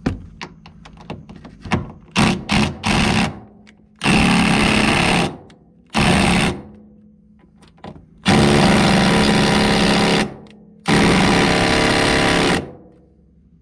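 DeWalt cordless impact driver hammering on the rust-seized door hinge bolts of a 1974 VW Super Beetle: a few quick blips, then four longer bursts of one to two seconds each, and the bolts do not break loose.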